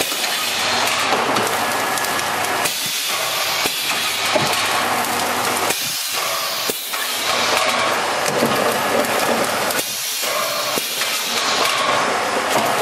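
Shrink packaging machine running with its heated shrink tunnel, giving a steady hiss of moving air.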